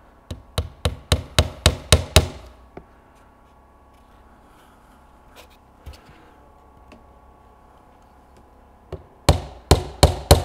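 Small hammer driving a nail into the wooden frame of a beehive floor: a quick run of about eight sharp taps, roughly four a second, then a pause with a few faint ticks, and a second run of taps starting near the end.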